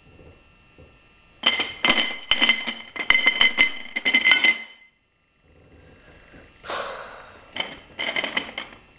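Tableware clattering and clinking: a quick run of knocks with a bright ringing tone for about three seconds, then after a short silent gap a few more clinks near the end.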